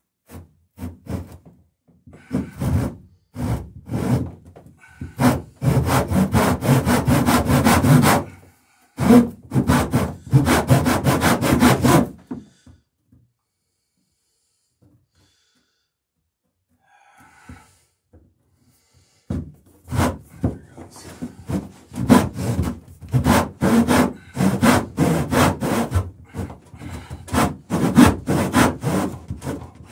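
Handsaw cutting through wooden cleats in rhythmic back-and-forth strokes. It stops for several seconds midway, then the sawing resumes.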